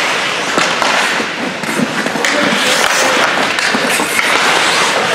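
Ice hockey play on the rink: skates scraping the ice, with sticks and puck clacking in scattered sharp knocks, under the echoing hall noise of the rink.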